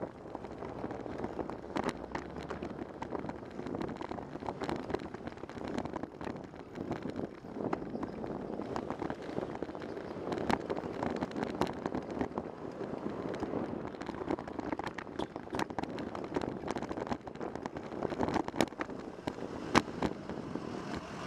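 Riding noise from a bicycle-mounted camera in city traffic: steady road rumble and wind on the microphone, with frequent sharp clicks and rattles throughout.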